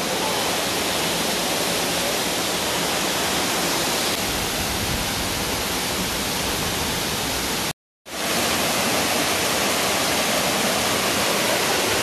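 Waterfall dropping from a height onto rock and a shallow pool, a steady rushing hiss heard from close to its foot. It cuts out completely for an instant about eight seconds in.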